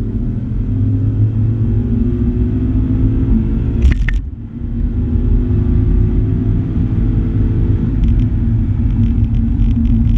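Ford Mustang GT's 5.0 V8 with long-tube headers, heard from inside the cabin, pulling hard under full acceleration with the engine note rising. About four seconds in a sharp click and a brief dip in level mark an upshift, then the note climbs again until about eight seconds in and holds steady after that.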